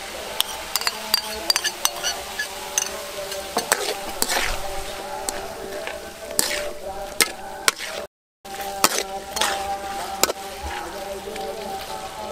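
A metal spatula stirring and scraping vegetables and sauce around a steel wok, with frequent sharp clinks against the pan over the hiss of the food frying. The sound drops out completely for a moment about two-thirds of the way through.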